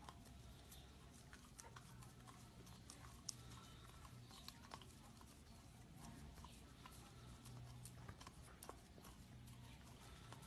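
German Shepherd puppy licking sticky peanut butter off a plastic spoon: faint, irregular wet smacking clicks of tongue and lips over a low steady hum.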